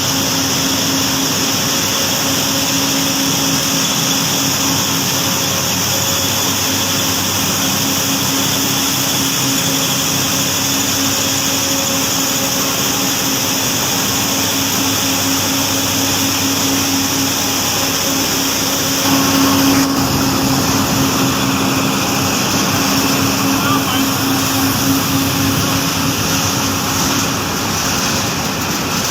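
Steady industrial machinery running: a continuous mechanical hum with a hiss over it. It gets a little louder about two-thirds of the way through.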